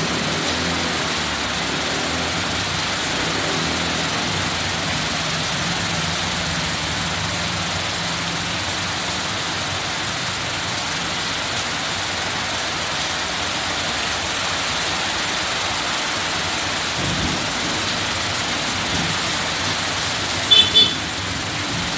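Heavy rain pouring steadily in a windy storm. A vehicle engine hums through it in the first several seconds, and two short, sharp high-pitched sounds stand out about a second before the end.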